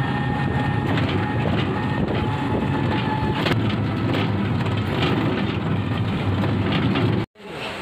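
Running noise of a moving vehicle heard from inside: a steady low rumble with light rattles, cutting off suddenly near the end.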